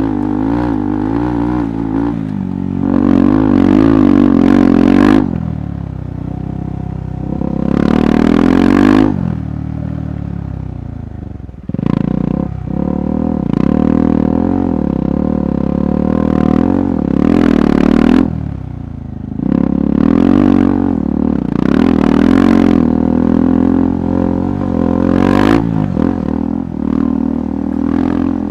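KTM 390 Adventure's single-cylinder engine under an off-road rider, revs rising and falling repeatedly with bursts of throttle and a brief drop in revs about twelve seconds in, with some clatter over rough ground.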